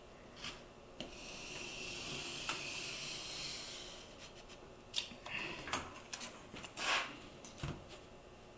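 A craft blade drawn steadily through mat board for about three seconds, making a high scraping hiss, then several sharp clicks and rustles as the board and tools are handled.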